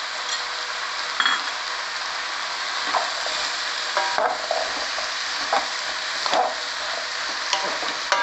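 Bottle gourd pieces with onion and tomato sizzling steadily in hot oil in a pan. A wooden spatula scrapes and knocks against the pan as they are stirred: once about a second in, then in short strokes every second or so from about three seconds on.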